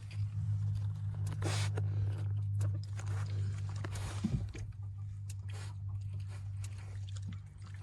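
An animal chewing and crunching on a freshly cracked raw egg, shell and all, in irregular wet crunches over a steady low hum.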